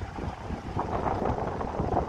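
Rolls-Royce Trent XWB turbofan engines of an Airbus A350 at climb power after takeoff, heard from far off as a steady rumble, mixed with wind buffeting the microphone.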